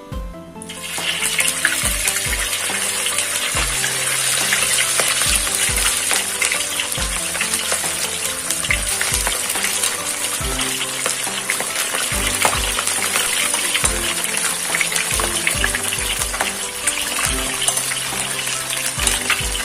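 Spiced braised chicken pieces sizzling loudly in hot cooking oil, the dense crackling hiss starting about a second in as the pieces go into the oil. Background music with a steady bass beat plays underneath.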